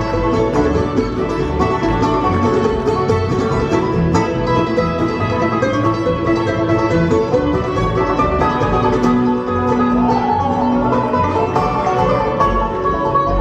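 Live bluegrass band playing: banjo, fiddle, mandolin, upright bass and acoustic guitar together.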